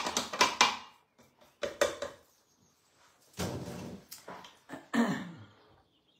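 A spatula scraping and tapping against the inside of a stainless steel food-processor bowl in quick strokes, then a couple of heavier knocks and rubs as the metal bowl is handled and lifted from its base.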